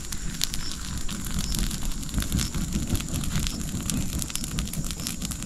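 Straw fire burning, with dense crackles and pops over a low rumble of flames, as a young dog carcass is singed on it.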